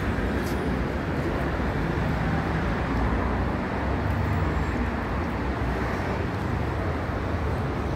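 Steady city road traffic: a continuous rumble of cars passing on the street.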